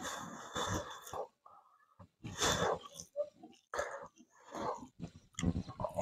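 Close-up mouth sounds of a person eating: chewing a mouthful of food, with breaths between, in short separate bursts with brief quiet gaps.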